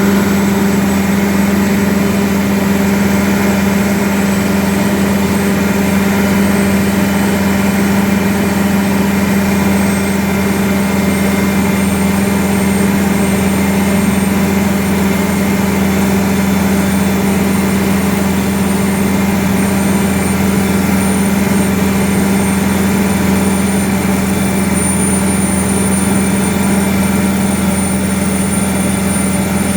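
Cummins N14 diesel engine in an International 9380 truck running steadily at idle, its turbocharger giving a thin high whistle over the engine note. The whistle creeps slightly up in pitch over the clip.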